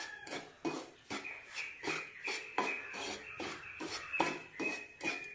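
Wooden spatula stirring and scraping dry ground poha (flattened-rice flour) across a nonstick pan while it dry-roasts, a stroke about every half second.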